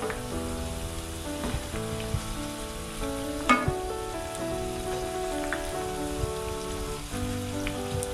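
Battered okra frying in hot oil, sizzling steadily, with scattered clicks of a steel slotted spoon in the pan as the pieces are turned, the sharpest about halfway through.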